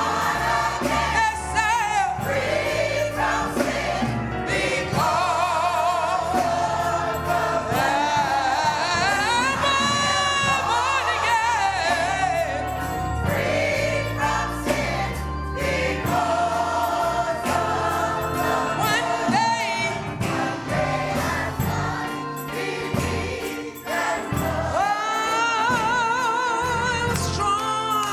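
Gospel choir singing a slow song in long, wavering held notes over steady instrumental accompaniment.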